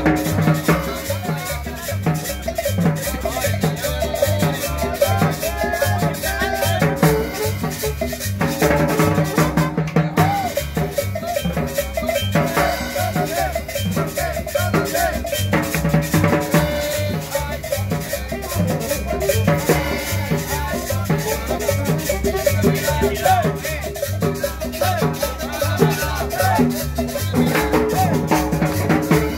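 Upbeat Latin dance music: drums and maracas over a steady bass beat, with a melody on top.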